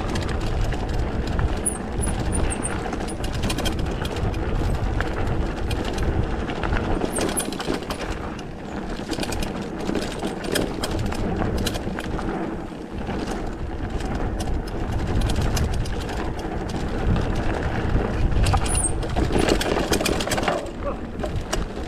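Mountain bike riding down a rough trail: tyres rolling and crunching over gravel, the bike rattling with many small clicks, and wind rumbling on the microphone.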